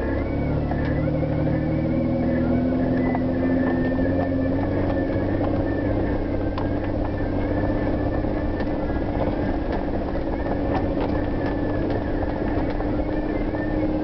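A vehicle's engine running at low speed, heard from inside the cabin as it climbs a dirt track; the revs rise a little over the first few seconds and then hold steady. Occasional light ticks and knocks come through.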